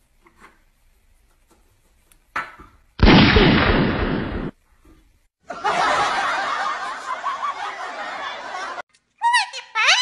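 People laughing in two stretches, a short loud one and then a longer one lasting about three seconds. Near the end come a few quick rising whistled notes.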